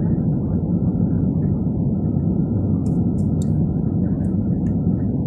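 Steady low rumble of an airliner's engines and airflow heard inside the cabin during the descent on final approach, with a few faint high ticks about three and four seconds in.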